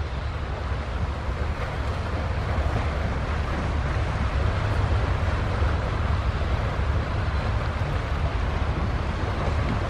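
Wind rumbling on the microphone over a steady wash of waves at the water's edge, growing a little louder through the middle.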